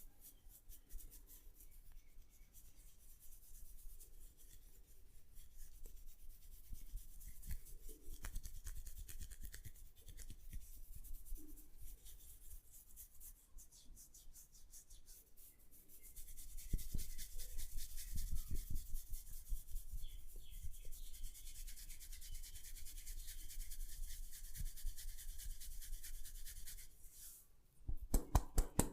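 Hands rubbing and working through a person's hair and over the scalp in a head massage, giving a dense, fast crackle of hair. It grows louder about halfway through, and near the end it changes to louder rhythmic strokes.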